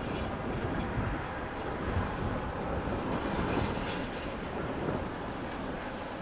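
ChME3 diesel-electric locomotive hauling a passenger train: a steady diesel engine rumble mixed with wheel and rail noise.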